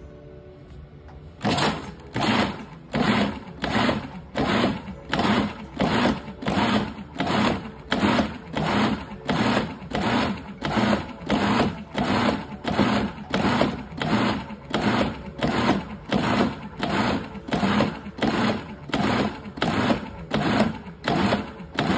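Food processor motor running, blending a thin liquid mixture, starting about a second and a half in and going in a regular pulsing beat about twice a second.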